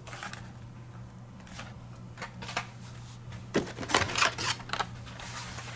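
Carded Hot Wheels cars in plastic blister packs being handled: scattered plastic clicks and rustles, bunched in two clusters around the middle.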